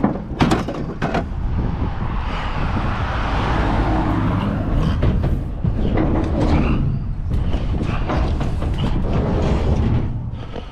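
Vehicle running with a steady low rumble and a rushing noise over it, and a couple of sharp knocks about half a second and a second in.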